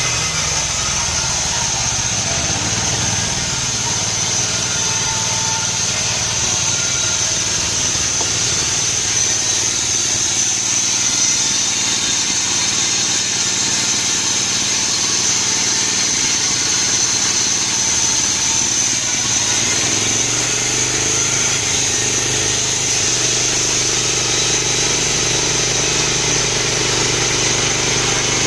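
Petrol engine of a homemade band sawmill running steadily, its low note shifting about two-thirds of the way through.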